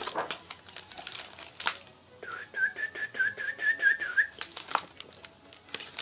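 A person whistling a warbling, bird-like call at one steady pitch for about two seconds, starting a couple of seconds in. Paper rustles from the pages of a picture book being handled come before and after it.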